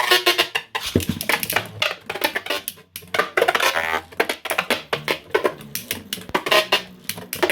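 Two 3D-printed Beyblade spinning tops clashing in a stadium: rapid, dense clicking and clattering of hits with a ringing tone between them.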